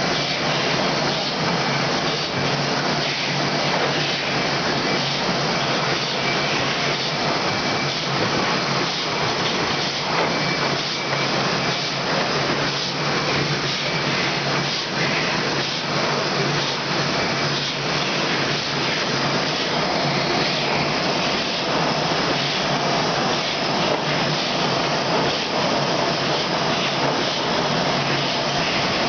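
Rotary cooking-oil filling and capping machine running steadily: a continuous loud hiss with a dense, fast, light clatter running through it.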